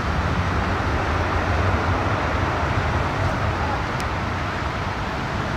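Distant jet airliner engines on the runway, a steady rumble with a broad roar that swells slightly about a second and a half in.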